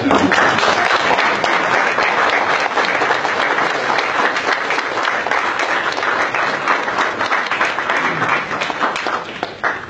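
A crowd applauding: many hands clapping at once in one long, steady round that dies away near the end.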